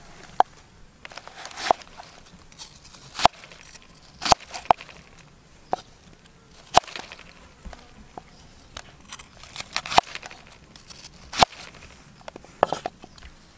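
Irregular sharp knocks and clicks, about a dozen over the span, the strongest ones crisp and reaching high, with fainter ticks between.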